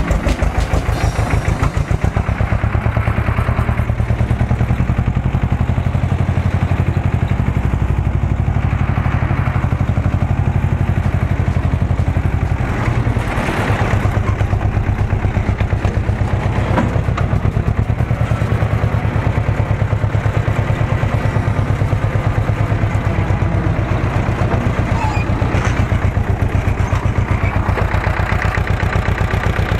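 Ursus C-330 tractor's two-cylinder diesel engine running steadily on the move, with a rapid, even chugging pulse. A single brief knock sounds near the middle.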